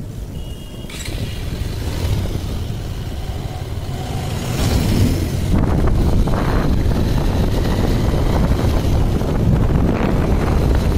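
A vehicle on the move: a low rumbling noise that grows louder over the first five or six seconds and then holds steady.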